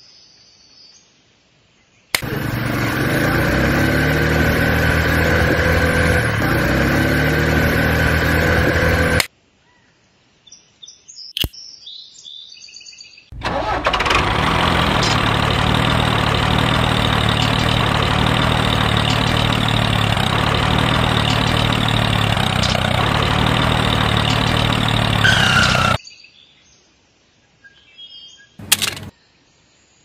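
Motor of a miniature DIY toy tractor running in two long stretches, about seven and twelve seconds long, each starting and cutting off abruptly. In the first stretch the pitch wavers up and down.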